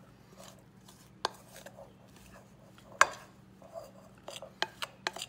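Metal spoon stirring stiff scone dough in a glass mixing bowl, scraping along the bottom, with sharp clinks of the spoon against the glass. The loudest clink comes about three seconds in, and a quick run of clinks comes near the end.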